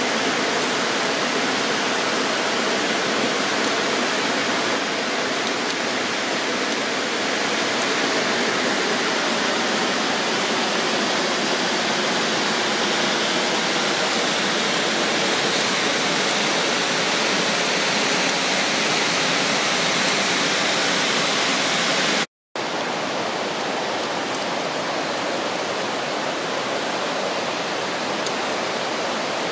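Rushing mountain river or waterfall in the gorge below, a steady loud roar of water, broken once by a split-second gap about three-quarters of the way through.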